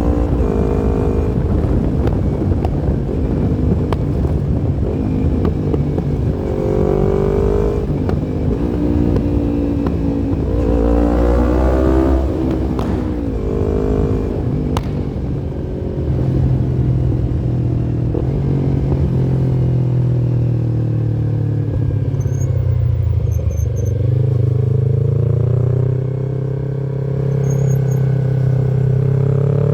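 Yamaha MT-25's 249 cc parallel-twin engine riding along, rising in pitch as it accelerates with short drops between rises as it shifts up, then running at a steadier pitch through the second half with a brief ease-off and pick-up again near the end.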